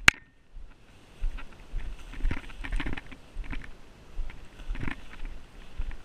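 A person walking through tall grass and brushy undergrowth: crunching footsteps and stems swishing against legs in uneven steps, with a sharp click at the very start.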